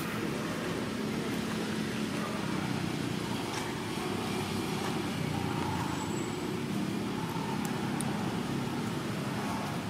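Steady low background rumble, even in level throughout, with a few faint high ticks.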